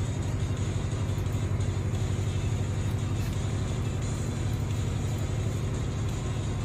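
Ship's machinery running with a steady low hum.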